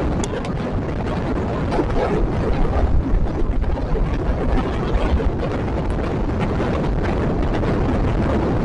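Steady rumble of a moving passenger train heard from on board: wheels running on the rails and air rushing past, with a few light knocks.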